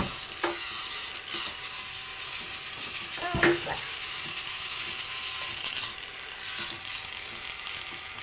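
Small plastic toy car rattling and knocking on a wooden board top as a child pushes it, with a louder knock about three and a half seconds in, over a steady hiss.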